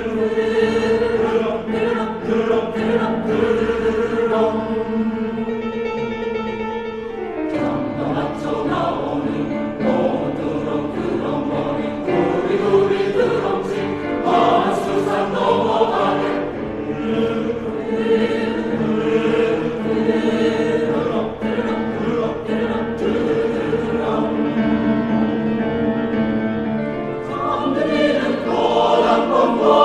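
Choir singing: a chord held steady for about the first seven seconds, then the voices move through changing notes, growing louder near the end.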